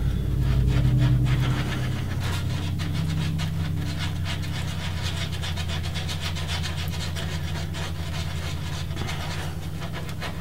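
Wooden stir stick scraping and stirring five-minute epoxy on a flat board surface in quick repeated strokes, over a steady low hum.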